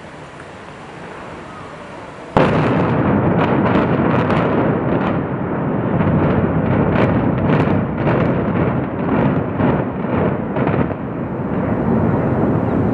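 Controlled demolition implosion of concrete high-rise towers: a sudden loud blast about two seconds in, then a rapid, irregular series of sharp detonation cracks from the explosive charges over the next eight seconds or so, over a continuous rumble as the towers come down.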